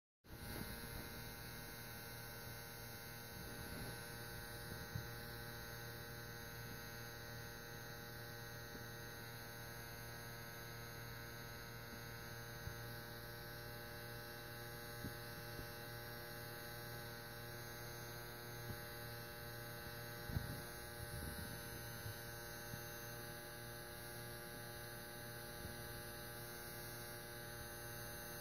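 Steady electrical hum with many even overtones, with a few faint knocks.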